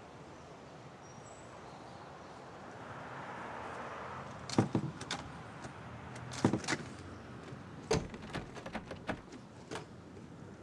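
A swell of noise that rises and fades, then a string of sharp knocks and clicks, about half a dozen, the loudest near the middle.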